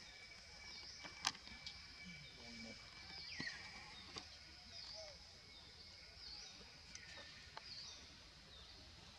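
Faint outdoor ambience with a bird chirping repeatedly, short high falling notes roughly every half second to a second. A single sharp click sounds a little after a second in.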